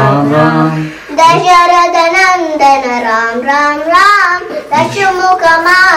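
A high voice singing a slow melody, with its pitch wavering and sliding on held notes and a short breath about a second in.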